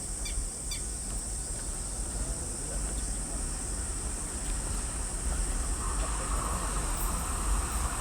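Steady high-pitched drone of insects such as crickets, over a low rumble. From about six seconds in, a fainter mid-pitched noise joins and the sound grows a little louder.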